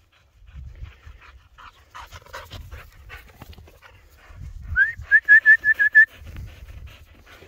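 Young Bavarian Mountain Hound giving a quick run of about seven short, high yips lasting just over a second, after a scatter of soft scuffling sounds.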